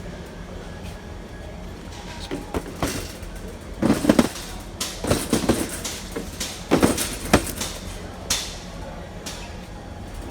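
Hard plastic clacks and clicks from a small-parts storage organizer being handled, its lid and bins knocking in several short clusters, the loudest about four and seven seconds in, over a steady low hum.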